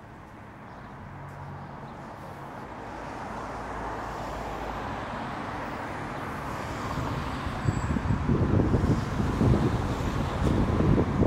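Street traffic: a motor vehicle's rumble and low hum growing steadily louder, loudest and roughest over the last few seconds.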